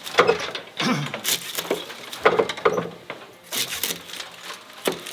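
Irregular clicks, taps and rustles as a handmade broom of broomcorn is handled and worked on a wooden workbench.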